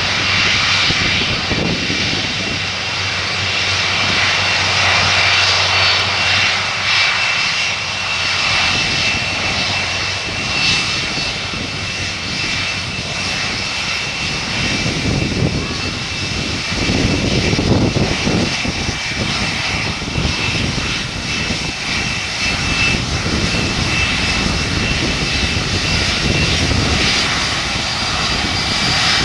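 Four Rolls-Royce RB211 turbofans of a Boeing 747-400 running as the airliner rolls out along the runway after landing. A steady high engine whine sits over a broad jet roar.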